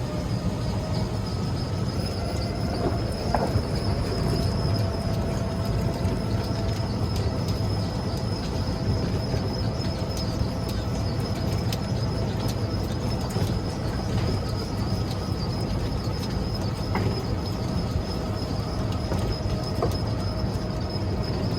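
Steady low rumble of a moving train carriage heard from inside, with a faint steady whine above it.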